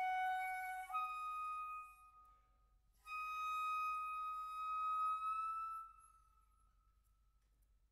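A solo concert flute playing slow, held notes. A lower note steps up to a higher one and fades out after about two seconds. After a short pause comes one long high note, held for about three seconds, which bends slightly upward before dying away.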